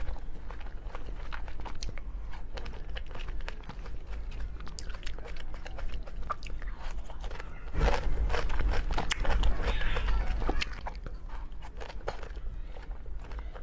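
Close-up eating sounds: a person biting and chewing food, with many small crunchy clicks. A louder, denser stretch with a low rumble comes a little past the middle.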